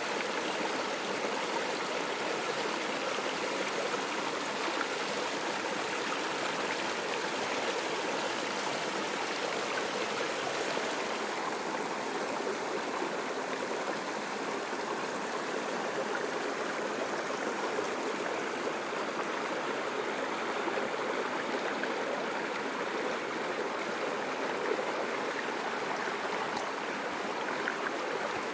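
Running water, a stream flowing steadily over stones.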